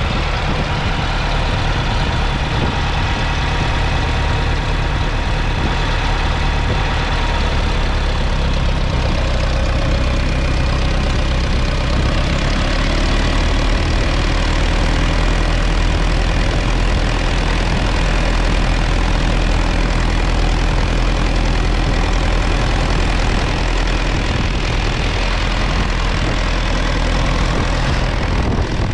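1961 Massey Ferguson 35's 2.3-litre four-cylinder diesel engine running steadily while the tractor pulls a two-furrow mounted plough through the soil.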